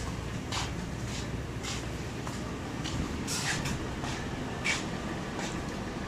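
Footsteps on a concrete workshop floor: short, sharp scuffs, several about half a second apart, over a steady low background hum.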